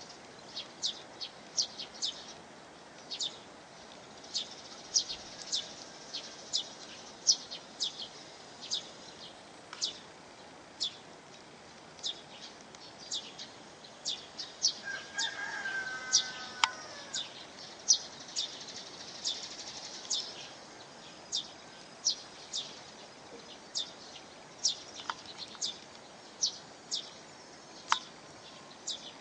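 Steady rush of a waterfall under a small bird's repeated short, sharp high chirps, one every half second to a second. About halfway through, a longer and lower pitched call sounds briefly.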